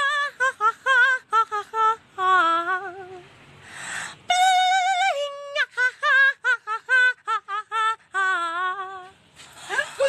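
A single voice singing unaccompanied in a very high, wavering register: short quavering notes with vibrato, broken by a pause of about a second just before halfway.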